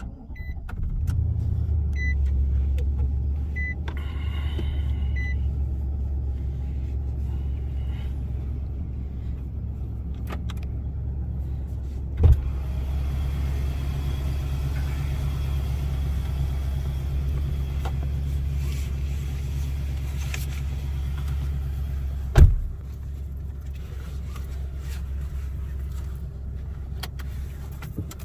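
Car running and driving, heard from inside the cabin as a steady low rumble that comes up about a second in. A warning chime beeps about once a second over the first few seconds, and two sharp thumps come about twelve and twenty-two seconds in.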